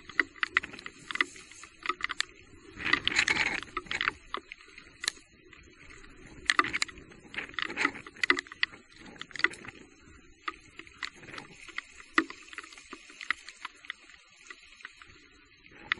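Electric mountain bike riding over a wet, rocky trail: a steady string of sharp knocks and rattles, with a louder splash through water about three seconds in.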